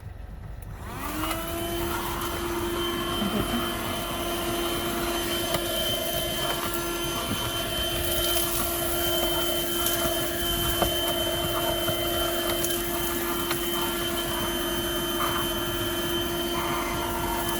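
Buture handheld car vacuum switched on about a second in, its motor spinning up with a brief rise in pitch and then running with a steady whine and airflow hiss as it vacuums the car floor through the floor nozzle.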